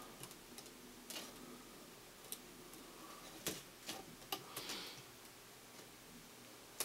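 Faint, irregular small clicks and ticks with light rustling: tiny screws and a small screwdriver being handled against a laptop screen panel's metal side bracket.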